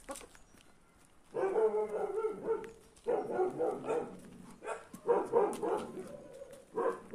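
A dog barking in four quick runs of barks, starting about a second in.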